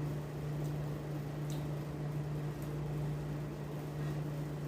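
A steady low hum from a running machine or appliance, with a few faint light clicks over it.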